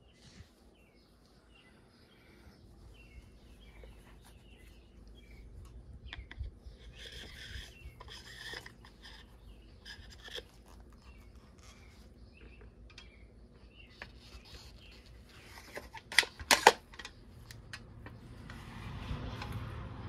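Handling noise of toy tractor parts: rubber tyres and wheels rubbing and scraping as they are fitted onto the axle, with a few sharp clicks late on and a rise of rubbing near the end.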